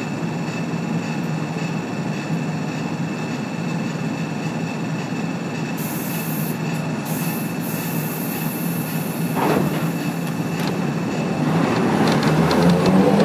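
Onboard running sound of a Manyosen De7070 tram with nose-suspended (tsurikake) traction motors: a steady low hum of motors and wheels on rail. There is a brief high hiss about six seconds in, and the running sound grows louder near the end.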